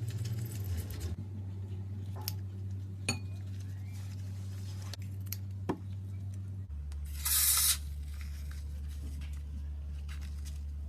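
Slime-filled balloons being handled: a few light clicks and taps, then a brief hiss-like squirt about seven seconds in, over a low steady hum.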